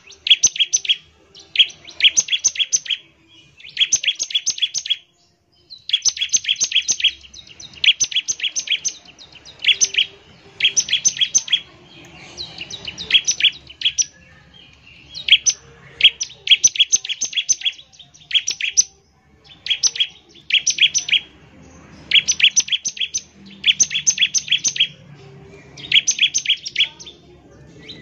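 Bar-winged prinia (ciblek) singing: repeated bursts of rapid, sharp high notes, each burst about a second long, separated by short pauses. This is the fast, piercing 'nembak ngebren' song that bird keepers play to draw a ciblek into full song.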